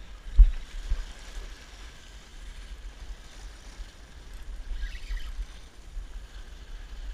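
Small waves washing and splashing against the rocks of a seawall, over a low rumble, with one sharp thump about half a second in.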